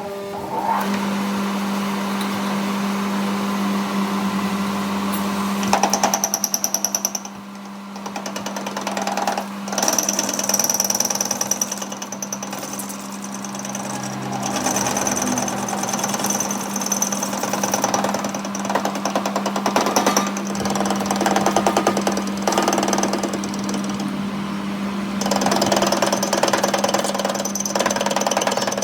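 Workshop machinery running, with a steady hum and a fast, rattling pulse that rises and falls in level, dipping briefly a few seconds in.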